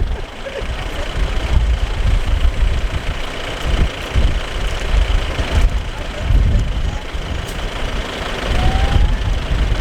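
Open safari jeep driving, its engine running under gusty wind rumbling on the microphone, with a faint short whistle-like call near the end.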